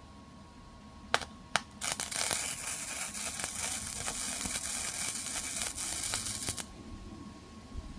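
Electric arc welding: two short arc strikes about a second in, then a steady crackling hiss of the arc running a bead for about five seconds, cutting off sharply.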